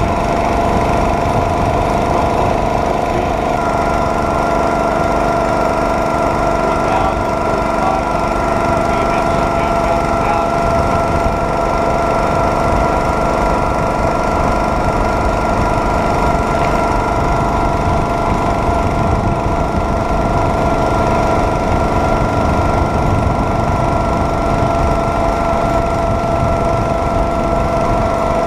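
Small gasoline engine of a homemade rail cart running at a steady speed. It gives a steady whine over a rough low rumble.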